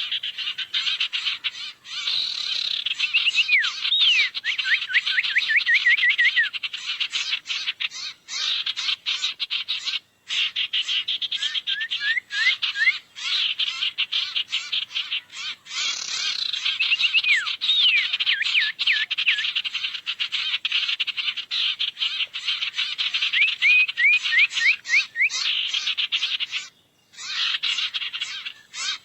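Sirtu bird calls played as a lure recording: a dense, rapid chatter of clicks with repeated runs of quick sweeping whistled notes, broken by short pauses about ten seconds in and near the end.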